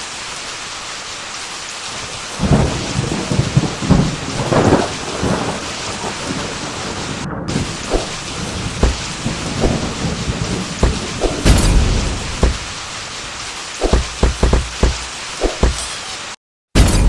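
Thunderstorm sound effect: steady heavy rain with repeated rumbles and sharp cracks of thunder starting about two seconds in, cutting off abruptly near the end.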